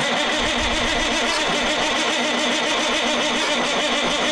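Caterpillar 3406B diesel being turned over by its starter: steady, rhythmic cranking that does not catch, which the owner puts down to the throttle being left at idle. It builds oil pressure and puffs a little smoke from the turbo.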